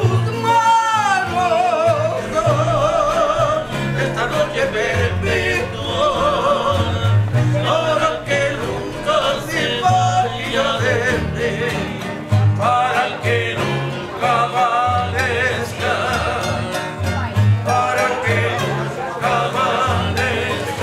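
Background music: a song with a wavering, vibrato-laden lead line over a pulsing bass.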